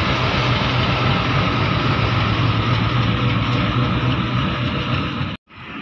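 WDG4G diesel-electric locomotive passing close by, its GE V12 diesel engine running loud and steady with a strong low hum. Near the end the sound cuts off abruptly and comes back quieter.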